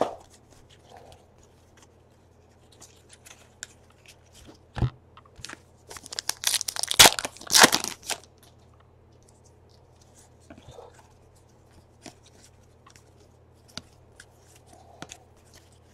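A 2017 Donruss Baseball trading-card pack's foil wrapper being torn open and crinkled, a cluster of rustling, crackling noise about six to eight seconds in. Around it are scattered faint clicks and a single tap of cards being handled.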